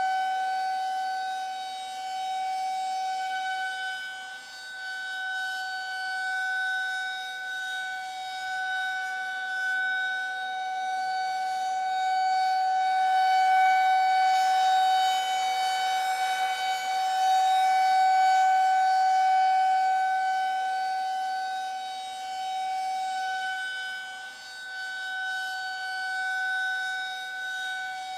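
Civil-defence air-raid siren sounding the warning signal: one steady, high tone that does not change pitch, swelling and fading in loudness, with dips about four seconds in and near the end.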